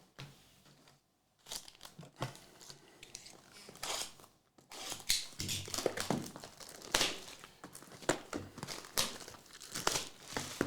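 Trading card pack wrappers being torn open and crinkled by hand: irregular crackling and tearing that starts about a second and a half in.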